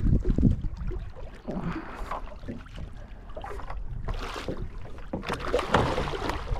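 Irregular bursts of rustling noise from activity aboard a small aluminium fishing boat, over a steady low rumble. The loudest burst comes about five seconds in and lasts about a second.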